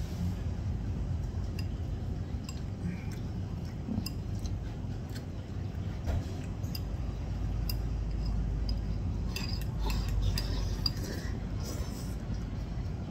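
Chopsticks clicking and scraping against a ceramic donburi bowl during eating, scattered light clicks over a low steady room hum.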